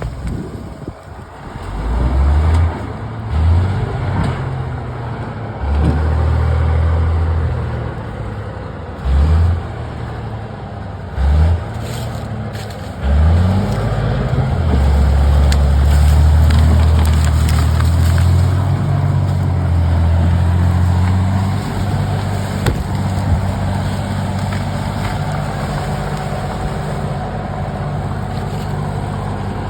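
Komatsu D70LE bulldozer's diesel engine revving up in short surges several times, then held at high revs for several seconds under load as it drags timber, before settling to steadier running.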